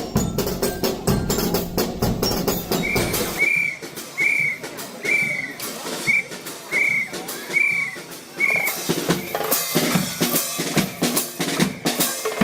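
Drumming with steady strokes, with a run of about eight short high notes in the middle.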